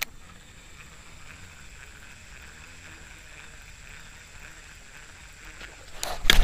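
A single click, then quiet open-air ambience with a faint steady high tone while a frog lure is worked. Near the end comes a sudden loud splash and thrashing as a snakehead strikes the frog lure.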